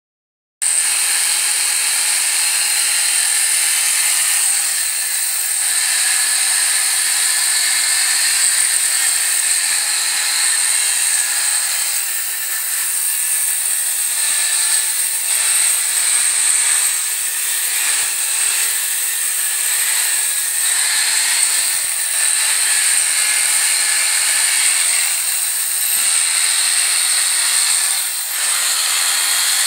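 Electric shearing clippers running steadily as they cut through a llama's fleece.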